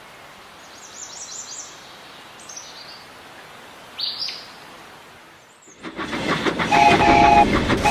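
Birds chirping over a steady outdoor hiss, then from about six seconds a steam locomotive chuffing in a rhythm, louder, and blowing its whistle twice near the end.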